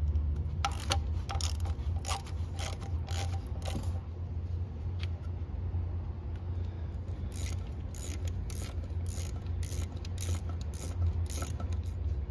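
Socket ratchet clicking as it turns bolts on an engine's thermostat housing, a run of clicks about two or three a second that pauses about four seconds in and starts again a few seconds later, over a steady low hum.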